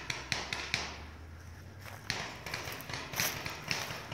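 Paintball markers firing: a string of sharp pops, several a second. They pause briefly about a second in and pick up again around two seconds in.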